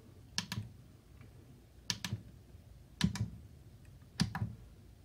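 Push buttons on a SkyRC iMax B6AC V2 hobby battery charger clicking as they are pressed while stepping through the menu to LiPo storage mode. There are four presses about a second apart, each a quick double click.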